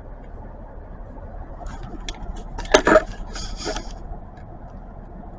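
A few sharp clicks and a short scraping rustle about halfway through, over a steady low hum.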